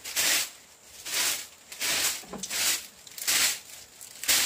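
Broom sweeping a packed-earth floor: about six quick scraping swishes, roughly one a second.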